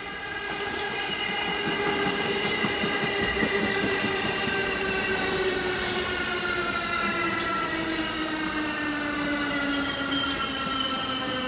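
R46 subway train running on the rails, its motors whining in a stack of tones that slowly falls in pitch, over a rumbling track noise that grows louder in the first couple of seconds.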